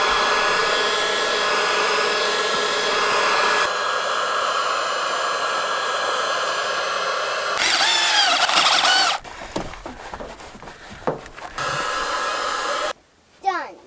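Handheld electric heat gun blowing steadily against a truck door to soften sun-baked vinyl decals. The sound shifts level at a few cuts and drops away for a stretch after about nine seconds, then returns before dropping out near the end. About eight seconds in, a high wavering voice-like call rises over it for a second or so.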